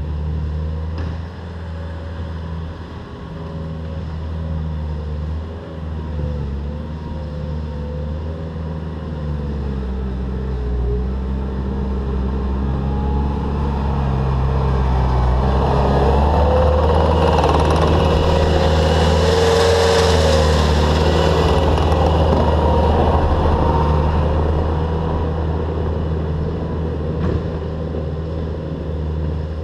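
Bobcat T300 compact track loader's diesel engine working under load as it pushes a heap of fill dirt. It grows louder, with a rushing noise, as the machine comes closest about halfway through, then fades as it reverses away.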